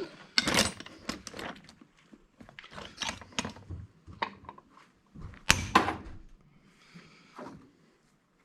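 Clinks, knocks and clatter of tools and metal parts being handled while an old electric angle grinder is dismantled for scrap. There are two louder sharp knocks, one about half a second in and one a little after five seconds.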